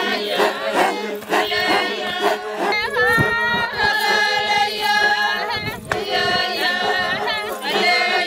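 A group of Maasai women singing a traditional chant together, unaccompanied: several voices at once with long held and sliding notes.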